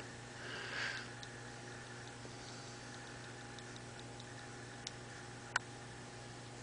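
Steady low hum with scattered faint ticks, and two sharp clicks close together about five seconds in.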